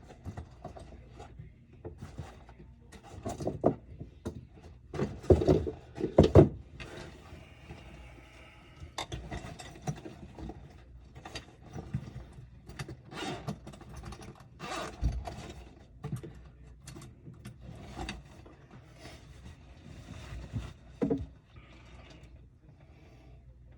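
Irregular knocks, clicks and scraping of tools and parts being handled during under-sink drain and disposal work. The loudest knocks come about five to six and a half seconds in.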